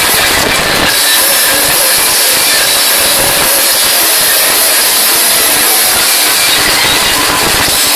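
Live heavy metal band playing loud, distorted electric guitars over drums, heard as a dense, unbroken wall of sound with no singing.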